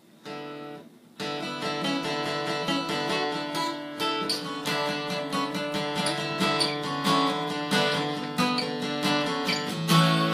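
Acoustic guitar strummed: one chord rings briefly at the start, then steady rhythmic strumming begins about a second in, a song's intro.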